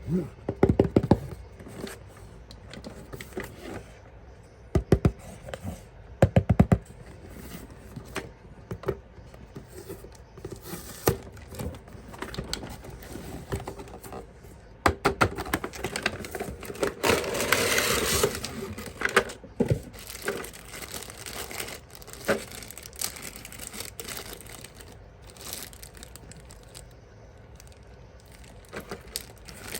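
Packaging being handled and opened: crinkling and tearing wrap with scattered knocks and clicks, and a longer rustle of tearing wrap a little past the middle.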